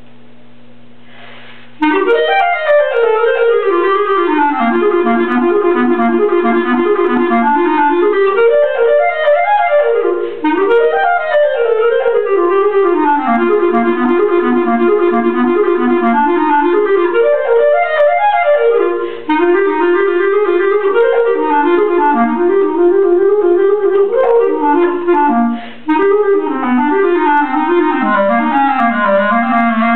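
Solo clarinet playing an étude: quick running passages of notes climbing and falling, with brief breaks for breath. A steady low hum is heard for about two seconds before the first note.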